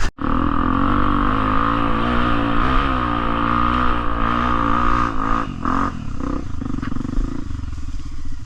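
Trail motorcycle engine running at fairly steady revs, its note wavering slightly, then easing off about five and a half seconds in.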